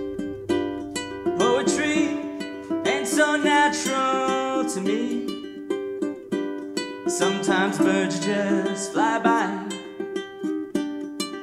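Ukulele strummed in a steady rhythm, opening a song. A wavering melody line comes in over it twice.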